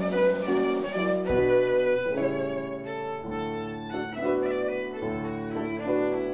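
Instrumental background music: a melody of held, bowed-sounding notes over accompaniment, changing note about every half second.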